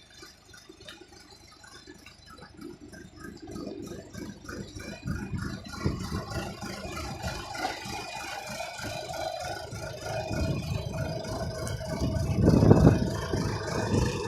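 John Deere 310A backhoe's engine running with a steady rattle. It grows louder over the first half, with a louder surge about three-quarters of the way through.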